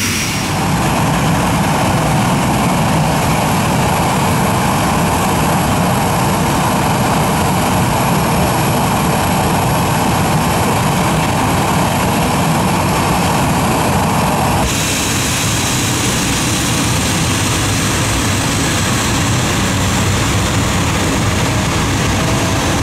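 Boeing 737-800 freighter's CFM56 turbofan engines running at taxi power: a steady loud jet rush with a high turbine whine. In the last third the whine slowly falls in pitch.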